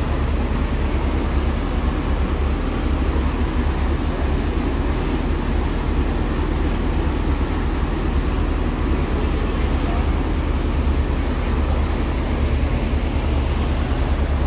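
Tour boat's engines running steadily with a deep constant hum, under a rushing wash of wake water and wind.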